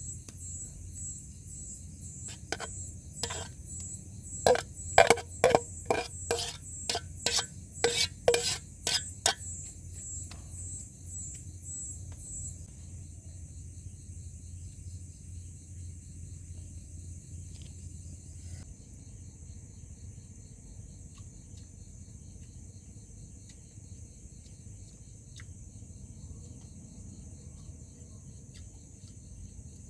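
A quick run of about a dozen sharp clinks, like metal cookware or utensils being knocked together, lasting several seconds. Under them is steady night-insect chirring, with a fast pulsing trill that stops about halfway through.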